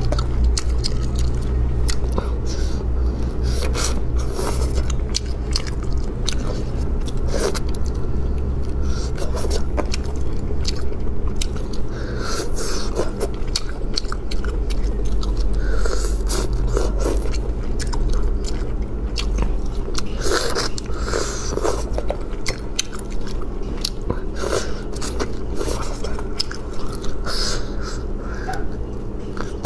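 Close-miked biting, chewing and lip-smacking of spicy crayfish tails in sauce: many short clicks and smacks over a steady low hum.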